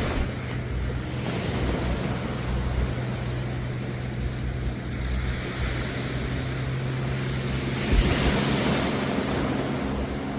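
Sea waves washing onto the beach in slow swells, one breaking louder about eight seconds in, over a steady low engine hum.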